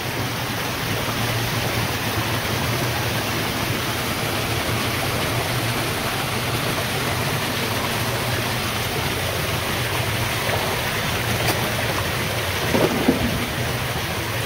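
Water pouring down the inside walls of a lake-drain intake structure and splashing into the pool at its base: a steady, even rushing splash.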